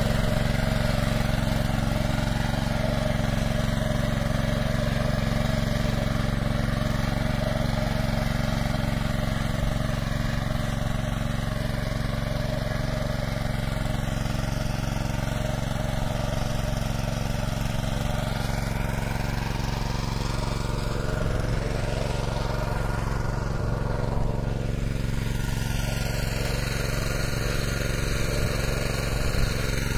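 Kisankraft KK-IC-200P petrol inter-cultivator's small engine running steadily at a constant speed while its rotary tines till the soil.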